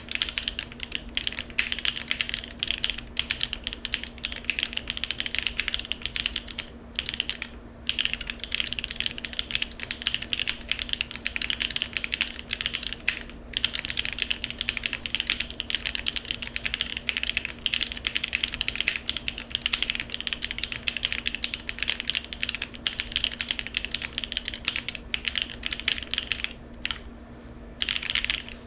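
Fast, continuous typing on a custom mechanical keyboard with lubed Jieum V2 switches, PBT keycaps and a polycarbonate plate with no foam, broken by a few short pauses.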